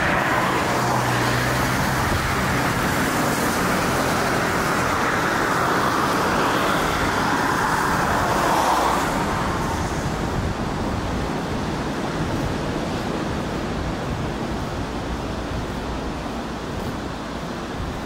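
Road traffic: cars passing, with a low engine hum in the first few seconds and slow swells of tyre noise. About nine seconds in it drops to a quieter, steady hum of more distant traffic.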